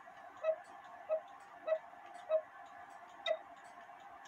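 Mechanical clock ticking: a clear, even tick about every two-thirds of a second, five in all, with a slightly longer gap before the last.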